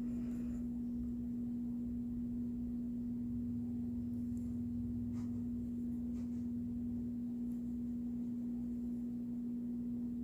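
Steady low hum holding one pitch, with a few faint ticks around the middle.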